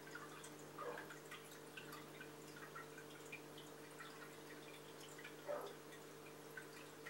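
Quiet aquarium water movement: scattered drips and small bubbling plinks, with a couple of louder drops, over the steady low hum of the tank's pump and filter.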